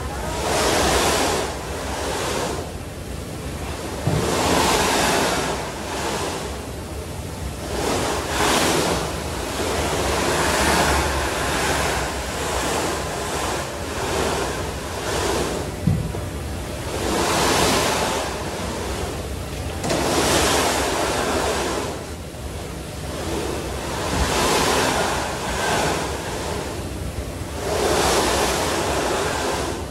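A snowboard sliding and scraping across the moving carpet of an indoor revolving ski slope, the noise swelling and fading with each turn, over a low steady hum. A light knock sounds about halfway through.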